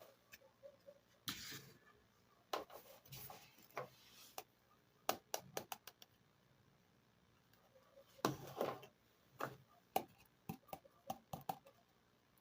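Small plastic toy kitchen pieces being handled: irregular light clicks and taps, several in quick runs, with a few short rustling scrapes, the longest a little past the middle.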